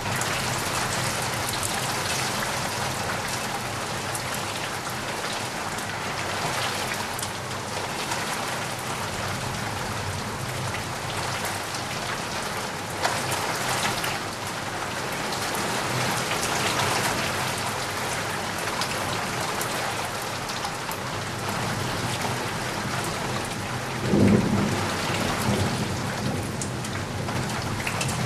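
Steady heavy rain falling in a dense, even hiss, with a low rumble of thunder swelling up near the end.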